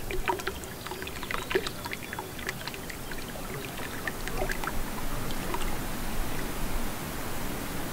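Alpine lake water lapping and trickling at the shore: a scatter of small splashes over the first few seconds, thinning out into a steady hiss.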